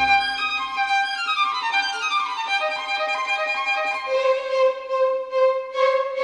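Background music, a string melody: a falling run of notes about a second in, then a long held low note from about two-thirds in.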